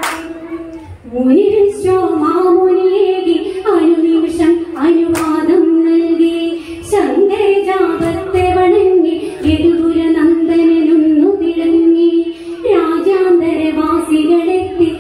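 Female voices singing a Malayalam Onamkali folk song, long held notes in phrases that break every second or two, with a few sharp handclaps.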